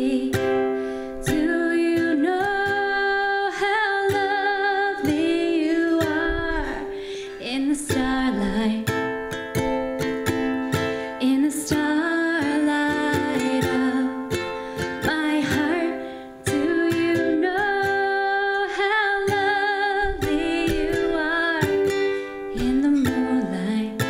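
A woman singing while strumming a ukulele, with vibrato on her held notes.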